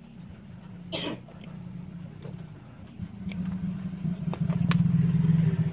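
A motor vehicle engine running close by, a low steady rumble that grows much louder from about three seconds in. It is joined by a few light clicks of wire-stripping pliers working on a cable, and a short breathy sound about a second in.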